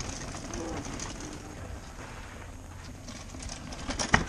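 Mountain bike rolling down a dirt forest trail and passing close, with a sharp clack from the bike about four seconds in. A dove coos faintly in the background.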